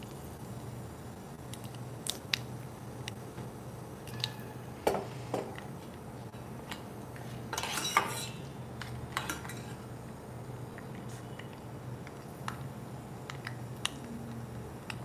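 Metal spoon stirring a tempering of dals and mustard seeds frying in oil in a small stainless steel pan, scraping and clinking against the steel. The clinks are scattered, with a denser clatter about eight seconds in, over a steady low hum.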